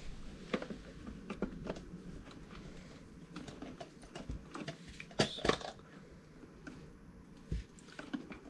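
Plastic clicks and knocks as the parts of a Silvercrest steam cleaner are handled and fitted together: the handheld unit is pushed into the upright frame. Two louder clicks come about five seconds in.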